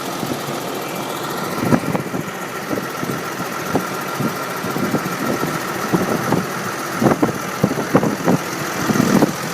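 Deutz tractor's diesel engine running steadily while ploughing, with a thin steady whine over it and irregular knocks and clanks throughout.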